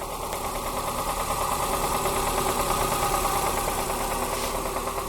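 Toyota Corsa's 5E-FHE four-cylinder engine idling with a steady, rapid knock, which the owner takes for connecting-rod knock.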